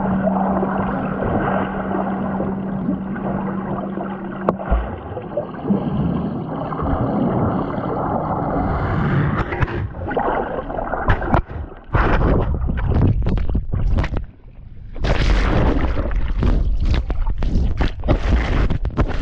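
Water gurgling and sloshing around a GoPro tumbling underwater and bobbing at the sea surface after falling off a jet ski. A steady low hum runs under it for the first few seconds; from about twelve seconds in, the sound turns into choppy surges and splashes as the camera breaks the surface and goes under again.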